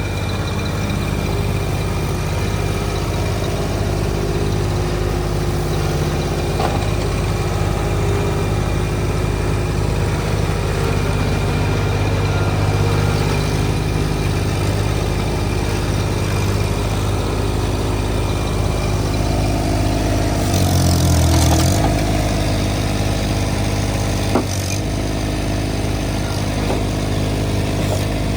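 Diesel engine of a compact track loader running steadily. About two-thirds of the way through the engine note dips in pitch for a second or two, then comes back up, with a short click soon after.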